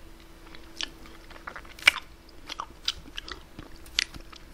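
Quiet close-up mouth sounds of eating cherry jubilee ice cream off a plastic spoon: scattered wet smacks and short clicks, the sharpest about two seconds in, with a plastic spoon tapping in the cup near the end.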